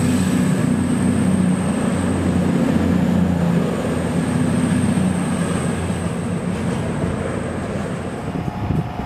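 CrossCountry Class 220/221 Voyager diesel multiple unit running past and away, its underfloor diesel engines droning with a thin high whine above. The sound fades steadily as the train draws off, and the whine stops about eight seconds in.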